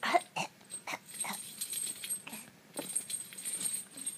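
A seven-month-old baby coughing: a series of short, separate coughs, the loudest at the very start.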